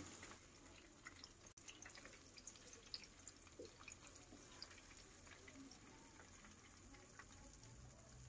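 Faint crackle of hot oil, with scattered small pops, around batter-coated cabbage rolls frying in a pan.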